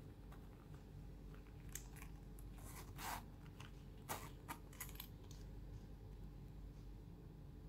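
Metal zipper on a small leather zip-around card wallet being drawn shut in short rasps, with a few sharp clicks of handling. The loudest click is about four seconds in.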